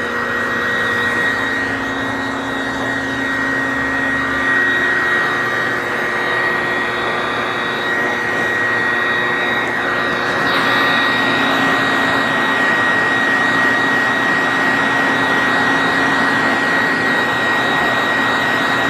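Forced-air dog grooming dryer blowing through its hose: a steady rush of air with a high whine. Its tone shifts slightly about halfway through as the airflow changes.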